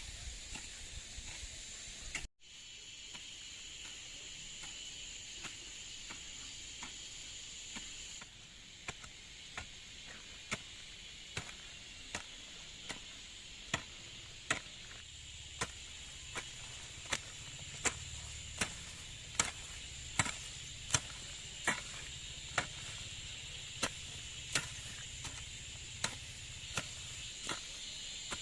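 Steady high chirring of insects, and from about a third of the way in, a hand tool chopping at an even pace, about four strikes every three seconds, the strikes louder around the middle.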